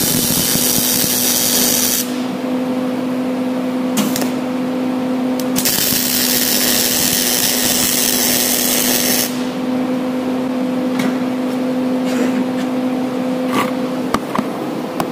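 Electric arc welding on a steel axle shaft: the arc's steady crackling hiss runs for about two seconds, stops, then runs again for about four seconds in the middle, over a steady electrical hum. A few light clicks and taps come near the end.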